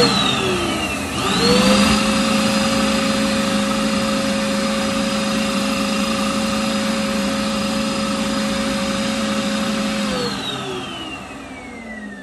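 Power drill spinning a dryer-vent cleaning brush rod over the steady noise of a vacuum cleaner sucking out lint. The drill's whine rises in a short burst, then rises again and holds steady for most of the time, and winds down over the last couple of seconds.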